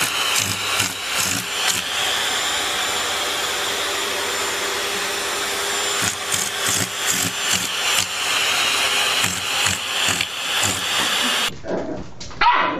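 Steady motor whir with a run of short sharp sounds over it. Near the end it cuts off abruptly and a brief rising whine follows.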